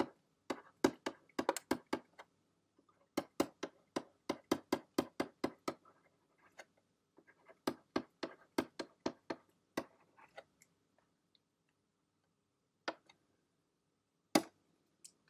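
Stylus tapping and clicking on a pen tablet while words are handwritten: quick runs of sharp clicks, about four a second, in three bursts, then two lone clicks near the end.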